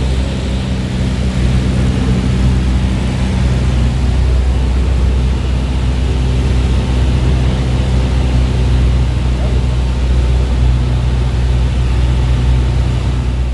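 A vehicle engine running steadily: a loud, even low hum under a rushing noise, with no change in pitch.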